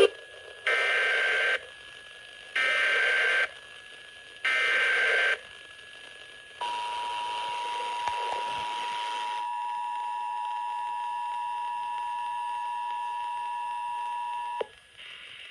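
Emergency Alert System test opening: three short bursts of the EAS digital (SAME) header data, each under a second and about a second apart. Then the EAS two-tone attention signal, two steady tones sounding together, holds for about eight seconds and cuts off sharply.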